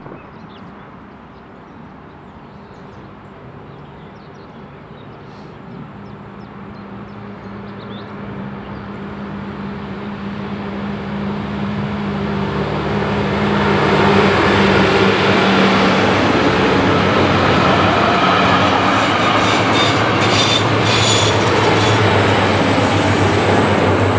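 Yellow diesel track-maintenance train (Bauzug) headed by a track machine, approaching and passing: a low steady engine hum with rolling noise that grows steadily louder over about fourteen seconds, then stays loud, with a quick run of wheel clicks on the rails near the end.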